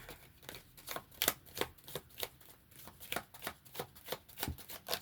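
A deck of oracle cards being shuffled by hand: a quick, uneven run of light card clicks and slaps, about three or four a second.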